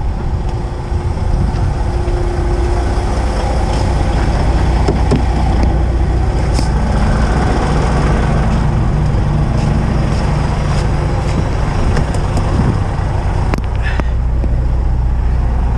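Kenworth heavy-haul truck's diesel engine running as the truck drives off, its low note growing stronger about six seconds in. A few short clicks near the end.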